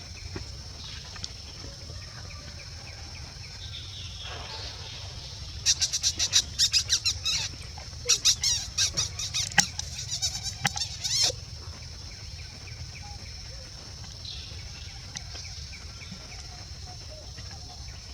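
A steady high-pitched insect drone with a loud run of rapid chirps, about eight a second. The chirps start about six seconds in and come in two bouts of a few seconds each.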